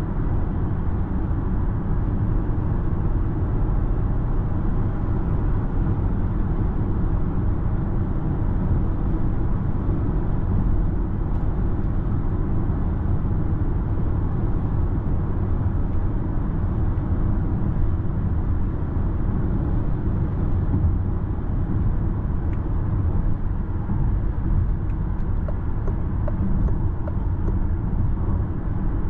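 Steady low rumble of road and wind noise inside the cabin of a 2024 Citroen C5 X plug-in hybrid cruising at about 110 km/h.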